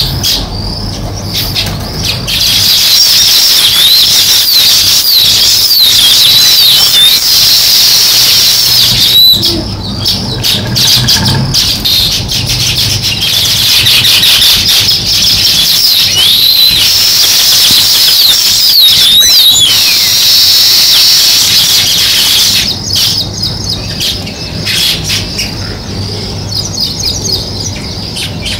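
House sparrows chirping in quick, overlapping chirps, thinning out about ten seconds in and again over the last few seconds.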